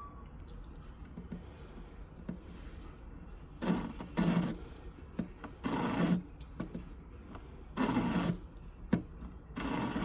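Hand file rasping across a gold ring in about five short strokes over the second half, with a sharp click between the last two.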